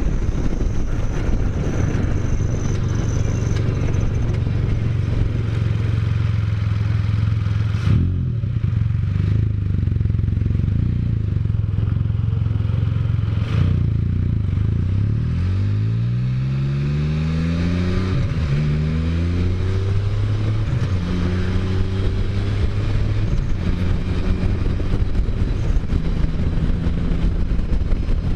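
Can-Am Spyder three-wheeled motorcycle engine running at steady cruise, then revving up twice in a row about halfway through as it accelerates through the gears, settling into a steady pitch again.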